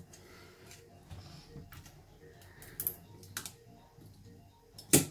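A few light metal clicks and scrapes as a Denso hairpin alternator's stator is levered out of its rear housing, with one sharper click near the end.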